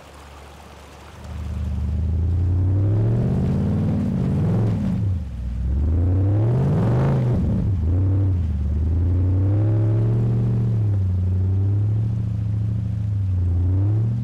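Off-road 4x4's engine revving, its pitch rising and falling again and again. It comes in loud about a second in and is highest near the middle.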